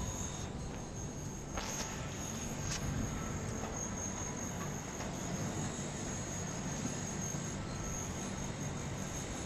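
Small 6 W, 8-inch solar-powered desk fan running steadily on its solar panel, a continuous whir of the spinning blades and motor, with a thin steady high tone over it.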